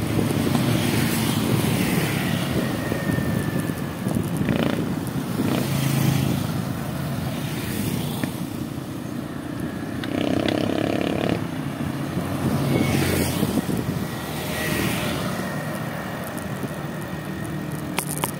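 Road traffic sounds from a moving vehicle: a steady engine rumble with passing vehicles swelling up and fading several times. About ten seconds in, a pitched tone sounds for about a second and a half.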